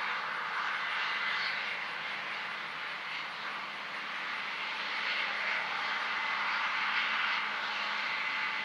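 Harvest machinery running steadily: a continuous mechanical drone with a faint steady whine, swelling a little in loudness now and then.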